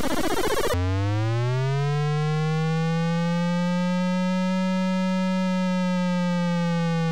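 Retro electronic arcade-style sound effect: a harsh buzzing burst lasting under a second, then a single buzzy synthesized tone that glides up in pitch, holds steady, and begins sliding back down near the end.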